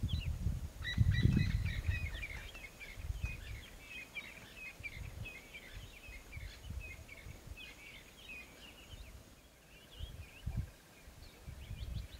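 Small birds chirping in quick, short calls, thinning out near the end, over irregular bursts of low rumbling noise that are loudest about a second in.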